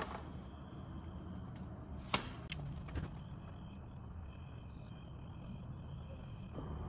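Old engine oil draining in a thin stream from the open drain-plug hole into a plastic drain pan, a faint steady pour, with a few light clicks, the clearest about two seconds in.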